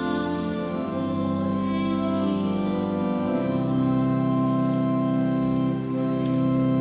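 Choir singing slow, long-held chords with a sustained instrumental accompaniment; the bass moves down to a lower held note about three seconds in.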